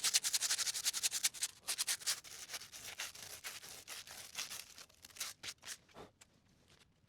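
Hand sanding loose rust off a steel acrow prop: quick rubbing strokes, several a second, thinning to a few scattered strokes near the end.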